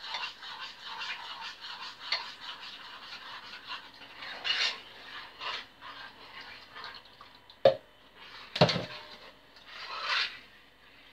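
Spoon stirring a sauce in a small metal saucepan, quick scraping strokes against the pan as milk is mixed into the sauce paste. Two sharp knocks about a second apart come about two-thirds of the way in.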